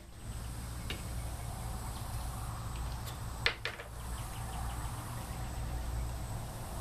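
A flap disc laid on the steel top of a 20 lb propane tank, clacking sharply once about three and a half seconds in, with a lighter tap just after and another near the start, over a steady low hum.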